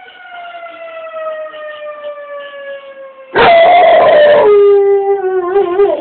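A fire siren winding slowly down in pitch. About three seconds in, a dog breaks into a loud howl over it, dropping in pitch and wavering before it stops at the end.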